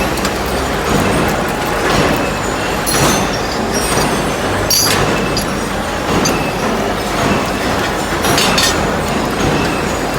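Four-spindle drilling machine running, drilling scaffolding components: a steady loud mechanical din with a sharp clank every second or two.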